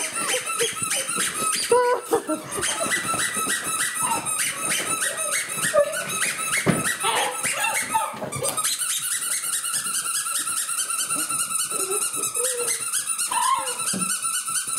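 Young puppies playing rough, with rapid, evenly repeated high squeaking through most of the stretch, becoming a more continuous squeal in the second half, and some growling.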